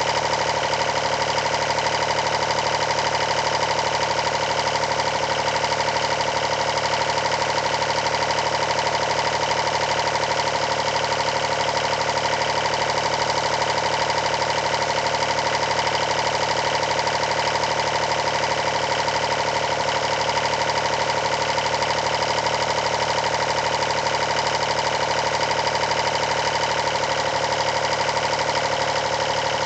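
Steady mechanical drone with a fast, even pulse and a strong steady whine, unchanging throughout.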